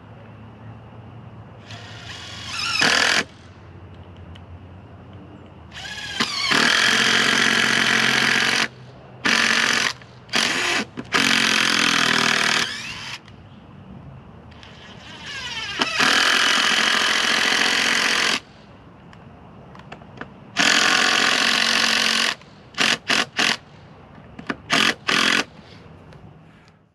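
Impact driver driving long HeadLok structural screws into wooden coop framing. It runs in about seven hammering bursts lasting from half a second to three seconds each, followed by a quick run of short bursts near the end.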